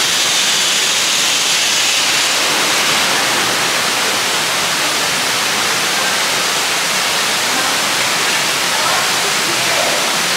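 Steady rushing of falling water, like a waterfall, loud and even throughout.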